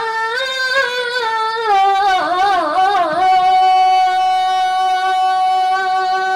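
A boy's solo voice sings an Arabic verse of daff muttu unaccompanied, the daf drums silent. He winds through quick ornamented turns, then holds one long steady note from about three seconds in.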